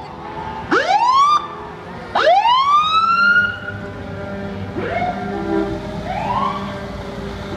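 Emergency vehicle siren sounding in short rising whoops, four of them. The second sweep, about two seconds in, is the longest and loudest, and the last two are fainter.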